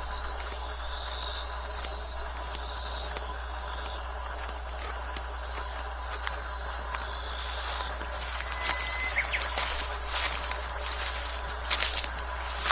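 A steady, high-pitched chorus of insects chirring. Scattered sharp clicks and taps join it from about eight and a half seconds in.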